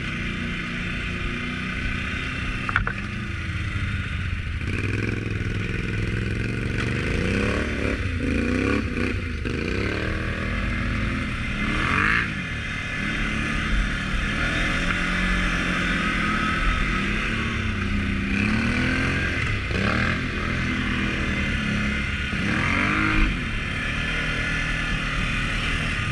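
ATV engine running under a rider on a rough dirt trail, its pitch rising and falling again and again as the throttle is worked, with a few knocks and rattles from the machine over the bumps.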